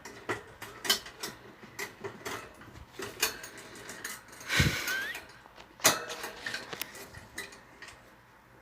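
Scattered clicks, knocks and rattles of a mouse cage's parts being handled, with a louder scrape about halfway through and a sharp knock about six seconds in.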